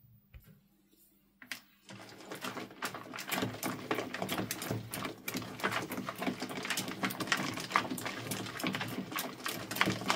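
Plastic spatula stirring a slime mixture of purple glue, white foam and small beads in a plastic bowl: a fast, dense run of small clicks and crackles that starts about two seconds in.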